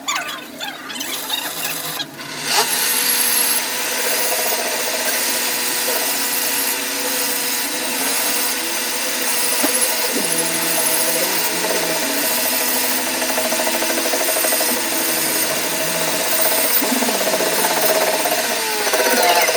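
A power tool working on metal, running steadily from about two and a half seconds in.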